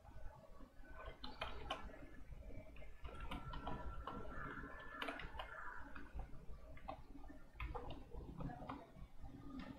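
Computer keyboard keys clicking in an irregular run as code is typed.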